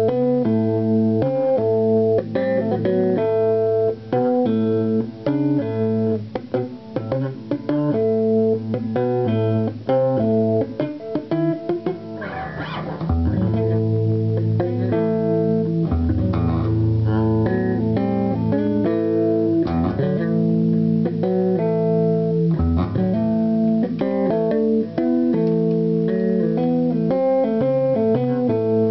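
Warwick electric bass guitar played solo, a busy stream of quick plucked notes and chords. The low notes grow fuller about halfway through.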